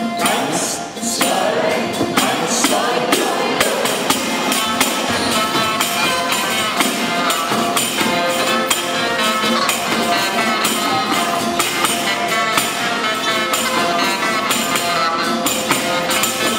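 A small folk band playing a lively tune: pipes and fiddle carry the melody over a steady tambourine beat.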